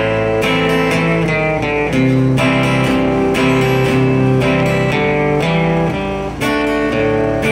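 Acoustic guitar strummed in a steady rhythm, the chord changing every couple of seconds.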